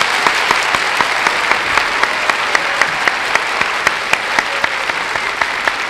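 Studio audience applauding steadily, with individual sharp claps standing out from the dense clapping.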